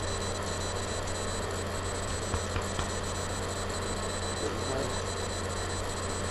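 Steady electrical hum and hiss from a laptop webcam recording, with two faint clicks about two and a half seconds in.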